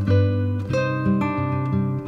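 Background instrumental music on plucked strings, like an acoustic guitar, with fresh notes picked every half second or so.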